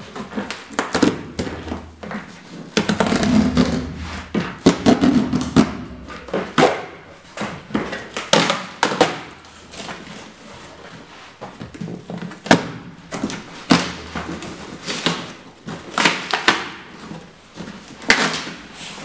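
Large corrugated cardboard box being torn open by hand: its flaps are ripped and pulled back, with irregular tearing and thumps of the cardboard.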